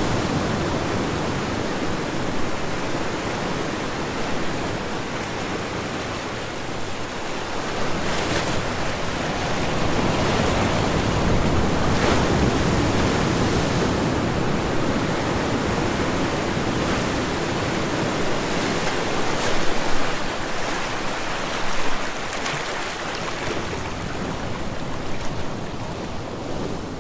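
Steady rushing noise with no tune or voice in it, swelling slightly in the middle, with a couple of brief louder surges late on.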